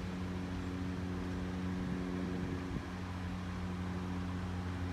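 A vehicle engine idling with a steady low hum.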